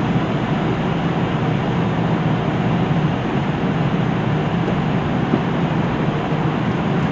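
KiHa 75 diesel railcar's engine idling steadily while the train stands at a station, heard from inside the passenger cabin.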